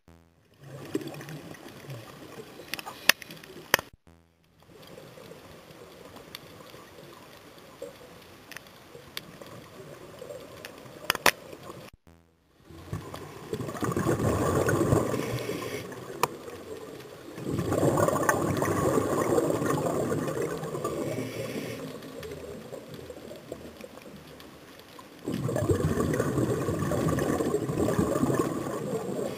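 Scuba diver's exhaled bubbles rushing past an underwater camera in three long swells, a few seconds apart, in the second half; before them, only faint underwater hiss with scattered small clicks.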